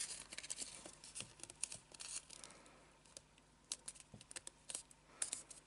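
A paper square being folded and creased by hand: faint rustling with scattered short crisp ticks.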